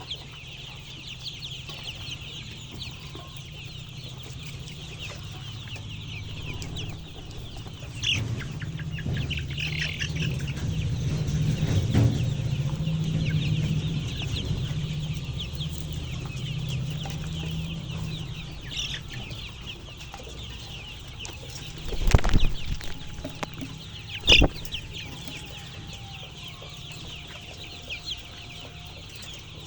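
A flock of chickens clucking and calling continuously, with wings flapping. The flock noise swells louder through the middle, and two sharp knocks come near the end.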